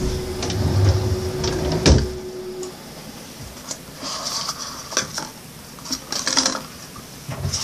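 A wooden vanity drawer is pulled open with a low rumble and stops with a sharp knock about two seconds in. Then plastic toiletries (cups, toothpaste tubes, a mouthwash bottle) rattle and click as hands rummage through the drawer.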